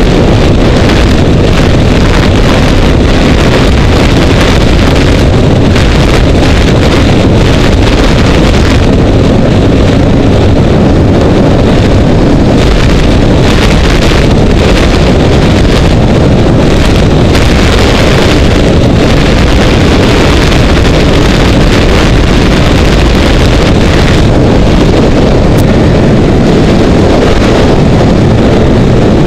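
Snowmobile running steadily at speed, its engine drone mixed with heavy wind buffeting on the microphone; loud throughout.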